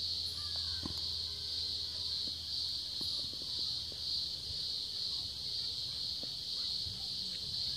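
Steady high-pitched insect drone that pulses gently, with a low hum underneath and a few faint clicks.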